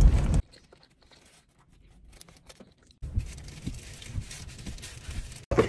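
Quiet low rumble inside a car with faint rustling and a few small clicks. It begins about three seconds in, after a stretch of near silence.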